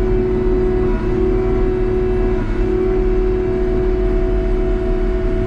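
CASE 2050M crawler dozer's diesel engine running at full revs, heard from inside the cab: a steady drone with a held whining tone that dips briefly twice.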